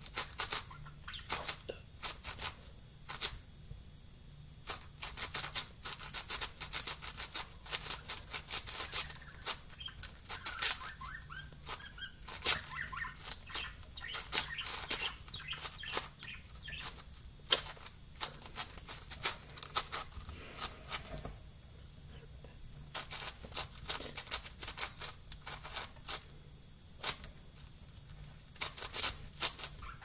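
Plastic 7x7 Rubik's cube being turned quickly by hand during a solve: irregular runs of sharp clicking and clacking as the layers snap round, with short pauses between runs.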